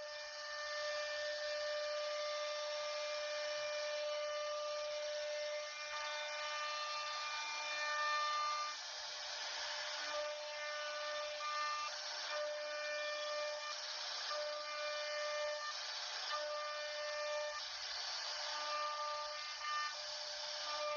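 CNC router carving a wooden door panel: a steady whine with hiss, its tones dropping in and out every second or two as the machine moves.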